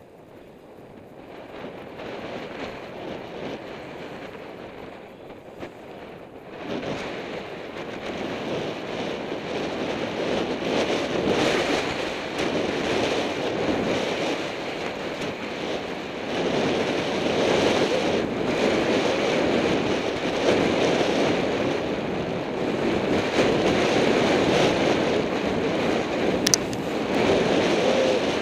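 Wind rushing over the camera's microphone with skis hissing over snow during a fast downhill ski run, building up over the first ten seconds as the skier gathers speed and then staying loud. A single sharp click sounds near the end.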